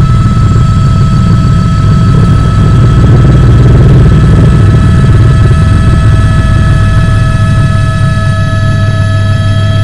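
A loud, steady, engine-like rumble under a constant high whine whose pitch stays the same throughout, with no rising or falling revs.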